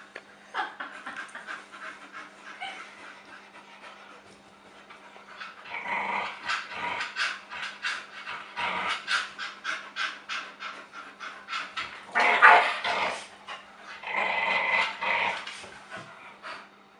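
Dogs panting rapidly, with a few louder, rougher bursts of growling about six, twelve and fourteen seconds in.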